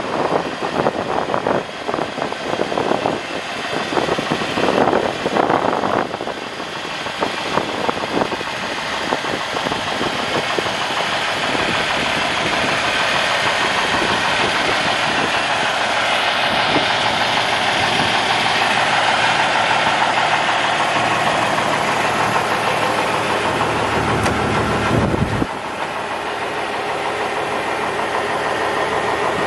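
Diesel engine of a 1977 Scania 111 truck running, uneven and pulsing for the first few seconds, then steadier and louder through the middle. The sound changes suddenly about 25 seconds in.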